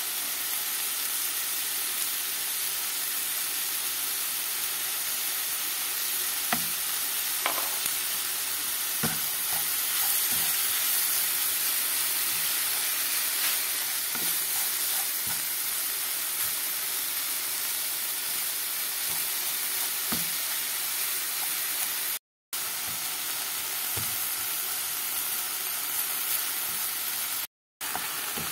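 Minced meat and chopped onion sizzling steadily as they fry in a pan, with a wooden spoon now and then knocking and scraping against the pan as it stirs. The sound cuts out completely for a moment twice near the end.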